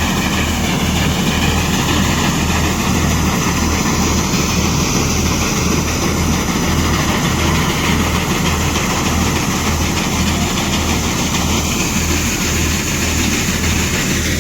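Tractor-driven corn thresher running steadily under load, a loud continuous mechanical clatter over an even low throb that repeats a few times a second.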